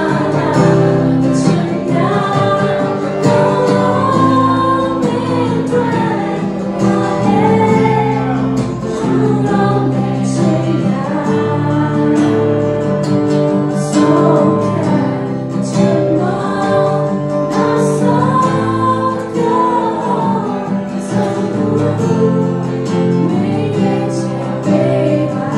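A woman singing a slow song into a microphone, accompanied by a strummed acoustic guitar, played live by a vocal-and-guitar duo.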